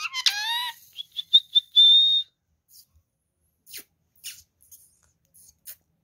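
Indian ringneck parakeet giving a short falling call, then a thin, high whistle held for about a second. A few faint ticks follow.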